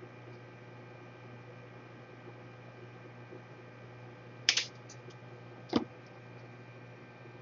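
Steady electrical hum with two sharp clicks of small tools being handled during a laptop power-jack repair: a short clatter about four and a half seconds in, then a single lower click about a second later.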